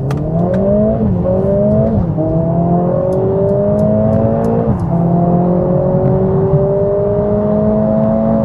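Mercedes-AMG A45 S's turbocharged 2.0-litre four-cylinder with a modified exhaust accelerating hard through the gears. The engine note rises and drops sharply at three upshifts, about one, two and nearly five seconds in, then climbs slowly in the higher gear.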